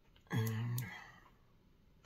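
A woman's brief wordless vocal sound, about half a second long, just after the start; otherwise quiet room tone.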